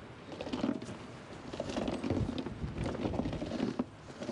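A man heaving a heavy dual tractor tire onto its hub: low strained grunts and the rubber shifting and scraping, in about four pushes.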